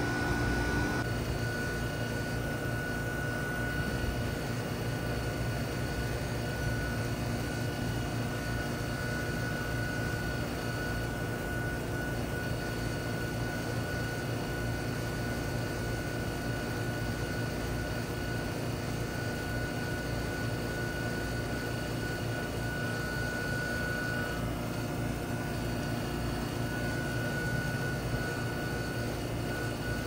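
Trane XB13 2.5-ton heat pump outdoor unit running steadily in cooling mode: its Climatuff reciprocating compressor hums under the rush of the condenser fan, with a faint steady high whine on top.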